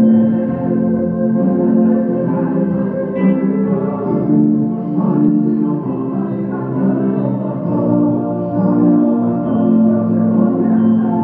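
Yamaha digital stage keyboard played with both hands: held chords that change every second or so, in a slow gospel progression.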